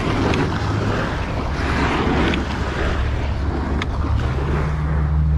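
A fishing kayak's hull being dragged by its bow handle across dry sand, a rough scraping hiss, with wind rumbling on the microphone.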